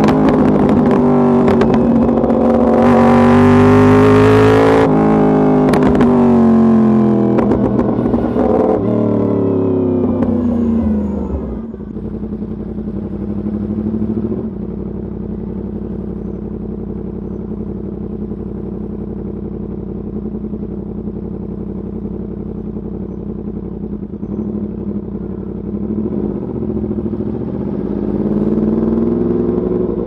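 Yamaha YZF-R1 60th Anniversary Edition's crossplane inline-four through an Arrow Pro race exhaust, heard from the rider's seat: revving up and down under throttle, falling to a steady idle about eleven seconds in, then picking up again near the end.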